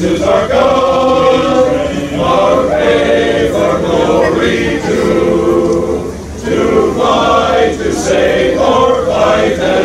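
Men's choir singing, many voices together in harmony, with a brief pause for breath about six seconds in.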